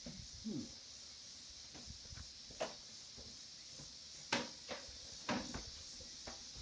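A few sharp knocks and clunks of objects being handled and set down, over a steady high hiss.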